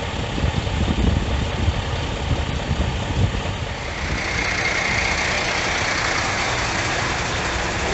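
Fire truck engine running, an uneven low rumble for the first few seconds; about four seconds in, a steady rushing noise takes over.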